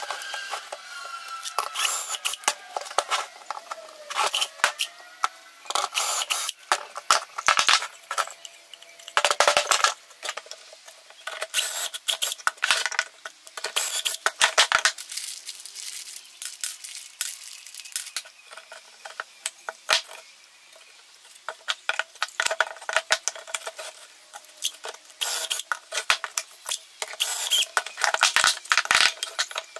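Hand-tool clatter on a wooden workbench: spring clamps, a plastic doweling jig and pallet boards being set down, knocked and adjusted, many sharp clicks and knocks, with a few short runs of a cordless drill boring dowel holes through the jig into the wood.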